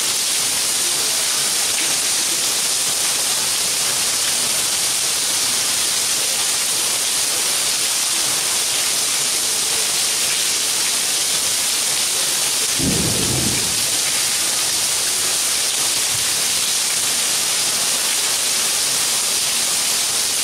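Steady rain falling on a paved courtyard, an even hiss, with one brief low thump about two-thirds of the way through.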